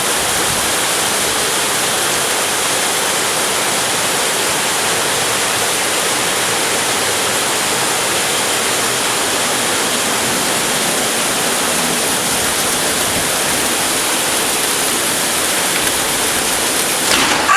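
Heavy rain pouring down in a dense, even rush that holds steady throughout. A sudden louder sound breaks in right at the end.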